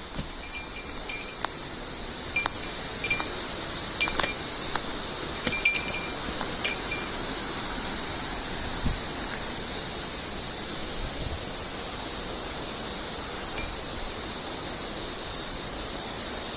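A small bell or chime tinkling irregularly for about the first seven seconds, then stopping, over a steady high-pitched hiss.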